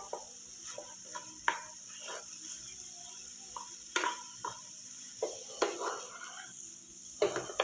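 A spatula stirring and mashing a boiled-potato and onion filling in a nonstick pan, with irregular knocks and scrapes against the pan; the sharpest knocks come about a second and a half in and about four seconds in.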